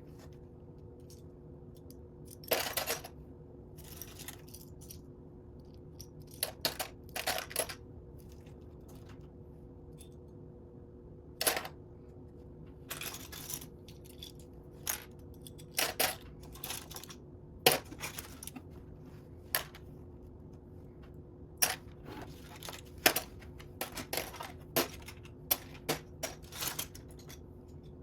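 Loose plastic Lego pieces clicking and rattling as they are picked through and handled: irregular sharp clicks and short clattering runs, with a steady faint hum underneath.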